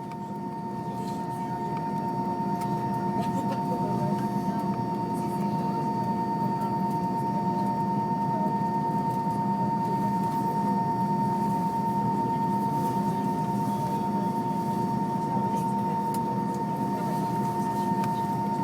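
Airbus A320 cabin noise while taxiing after landing: a steady hum with a steady whine from the IAE V2500 engines at idle, which swells a little over the first couple of seconds and then holds.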